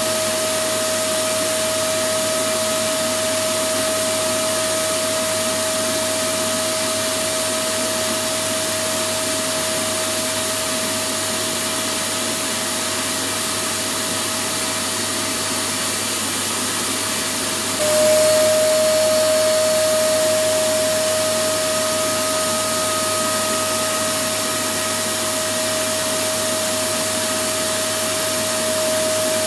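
Electric vacuum cleaner running steadily: a rushing hiss of air over a constant motor whine. About 18 seconds in, the whine drops slightly in pitch as the sound briefly gets louder, then settles.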